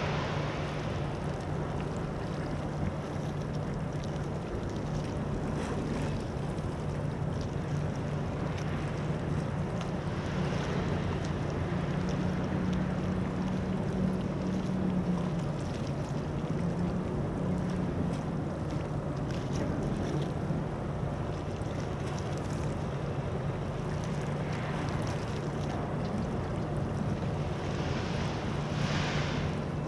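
Low steady drone of a ship's diesel engine carried across open water, rising slightly in pitch for a few seconds near the middle. Wind on the microphone and waves run beneath it, with a louder gust of noise near the end.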